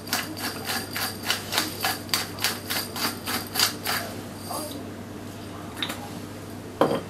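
Hand pepper mill being twisted, grinding peppercorns in a rapid rhythm of crunching clicks, about four to five a second, that stops about four and a half seconds in. A single knock follows near the end.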